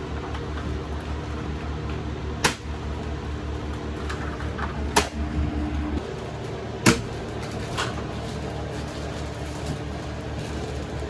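A steady low mechanical hum, with three sharp knocks a couple of seconds apart and a fainter one after them.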